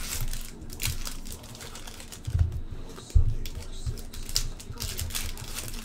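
Foil trading-card pack being torn open and the cards handled, irregular crinkling and card clicks, with a couple of dull knocks a little over two and three seconds in.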